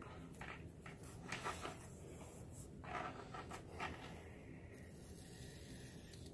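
Faint, short scratchy strokes of a hot knife's tip scraping and rubbing against pink foam board as the last small leftover bits of foam are worked out.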